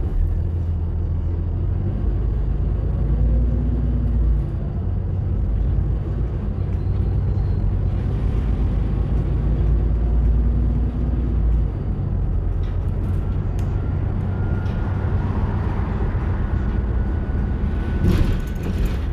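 Bus running, heard from inside the empty passenger cabin: a steady low engine and road rumble, with a faint high whine that rises in the second half and a short burst of noise near the end.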